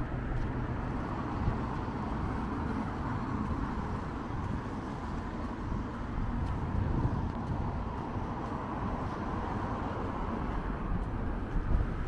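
Road traffic on the road beside the walkway: cars passing, a continuous rush of tyre and engine noise.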